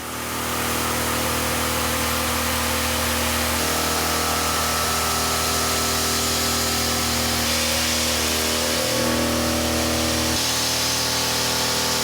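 Indexable insert end mill cutting metal on a CNC machine: a steady mechanical cutting sound of several held tones over hiss, its tones shifting abruptly about four, seven and ten seconds in.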